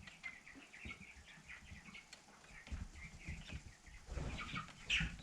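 A flock of young meat king broiler chickens peeping, many short chirps overlapping. About four seconds in come low knocks and rustling, then a sharp click near the end.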